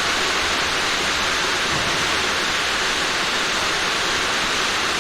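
Heavy rain falling steadily, a dense, even hiss with no separate drops standing out.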